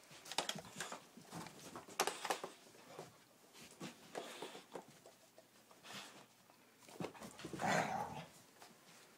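A dog attacking a switched-off upright vacuum cleaner: her own noises mixed with irregular clicks and knocks of teeth and claws on the vacuum's plastic, with a louder burst near the end. The vacuum itself makes no sound.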